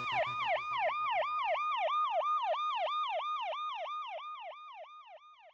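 Siren sound effect closing the song: a fast warble, about four sweeps a second, each rising quickly and sliding back down, fading out near the end. A low bass note from the track underneath stops about a second and a half in.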